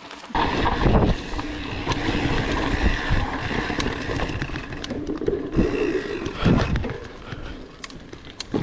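Mountain bike riding fast over a dirt forest trail, its frame and drivetrain rattling and knocking over bumps, with wind buffeting the on-board camera's microphone. The noise starts abruptly just after the beginning.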